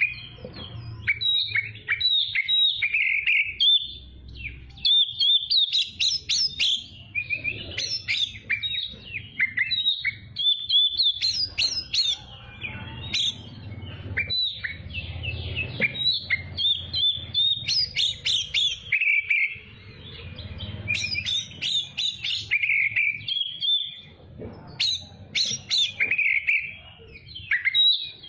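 Oriental magpie-robin (kacer) singing a fast, varied song of chirps, whistles and trills in phrase after phrase with brief pauses, over a faint low hum.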